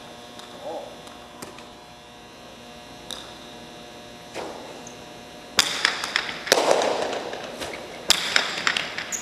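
Jai alai pelota cracking off the fronton walls and in and out of the players' wicker cestas during a rally: a faint steady hum at first, then from about halfway through a run of sharp, echoing cracks.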